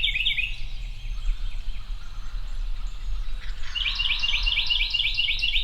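A songbird sings a fast run of repeated high chirping notes, about five a second, once at the very start and again from just before four seconds in, over a steady low rumble.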